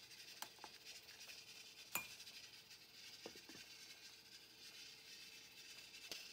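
Quiet metal clinks of a spoon in a stainless steel pot and its lid being set on, the loudest a single clink with a short ring about two seconds in.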